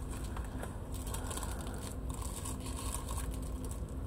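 Crinkling plastic packaging being handled and pulled open by hand: a run of small crackles and rustles.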